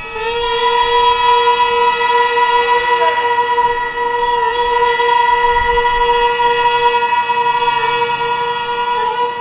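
Gagaku wind music: one loud, reedy note held for about nine seconds, dipping slightly in pitch midway and stopping abruptly near the end, over a steady held chord.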